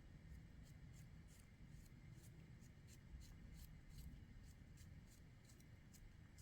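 Faint food-preparation sounds: light, irregular clicks and scrapes, about two or three a second, over a low room hum.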